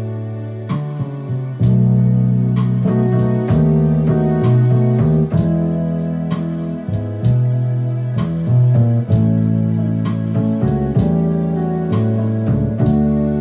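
Electronic keyboard playing a hymn tune: sustained chords over a bass line, the notes changing about once a second.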